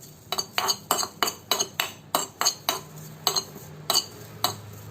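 A utensil clinking and scraping against a hot pan in quick, even strokes, about three a second, as omavalli (Indian borage) leaves are stirred and dry-roasted without oil or water.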